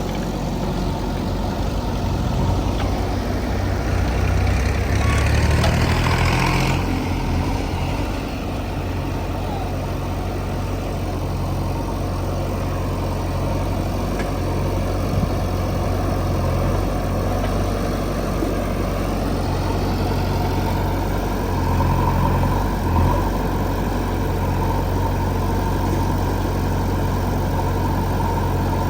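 Diesel engine of a JCB 3DX backhoe loader running steadily, rising in loudness with a rasping hiss about four to seven seconds in and swelling again briefly near twenty seconds in.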